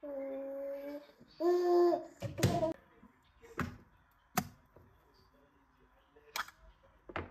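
A young child's voice calling out in two drawn-out sounds, the second one louder. After that come several sharp clicks and knocks as a small can is handled and opened on a countertop.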